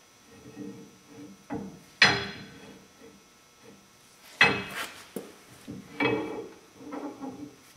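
Full-floating rear axle shaft being knocked and worked into the hub splines: three sharp metal-on-metal knocks that ring, about two, four and a half and six seconds in, between softer clunks and scraping.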